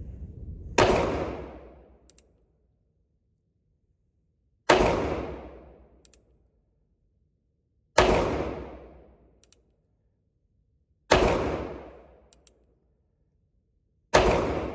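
Five shots from a North American Arms .22 Magnum mini revolver, fired one-handed about three seconds apart. Each sharp crack is followed by an echo that dies away over a second or so, with faint clicks between shots.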